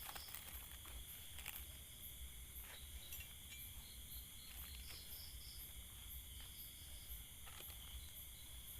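Faint, steady chorus of crickets and other insects chirring, with a few scattered faint clicks.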